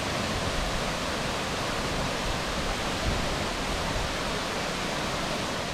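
Millaa Millaa Falls pouring into its pool, a steady full rushing of falling water.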